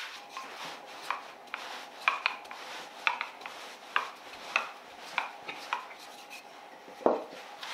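Wooden rolling pin rolling out puff pastry on a floured wooden worktop: a soft rubbing with light knocks about every half second as it is pushed back and forth, and one louder knock about seven seconds in.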